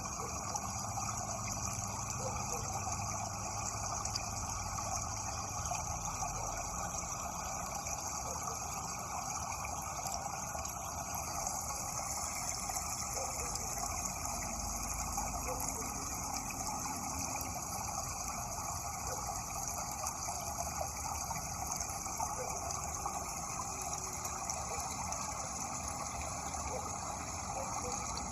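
Running water making a steady, unbroken rushing sound.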